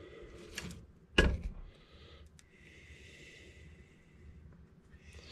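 Chainsaw parts and tools being handled during disassembly: a couple of light clicks, a sharp clack a little over a second in, then about two seconds of a soft rasping noise.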